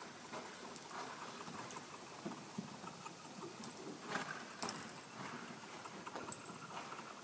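Horse's hooves thudding and scuffing in soft arena dirt as the horse turns under saddle, in an irregular patter with a couple of sharper clicks about four seconds in.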